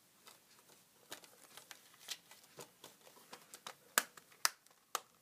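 Plastic Blu-ray and DVD cases and discs being handled: a scatter of light taps, rustles and clicks, with three sharper plastic clicks near the end.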